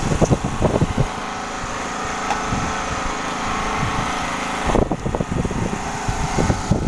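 A small engine running steadily at an even speed, with bouts of low rumbling and knocks near the start and again near the end.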